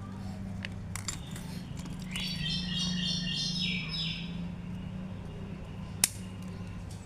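A small bird chirping a quick run of high notes for about two seconds, over a steady low hum. A few faint clicks, and one sharp click about six seconds in.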